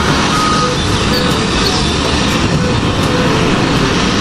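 Heavy diesel earthmoving machinery running steadily: a large wheel loader working with its engine under load.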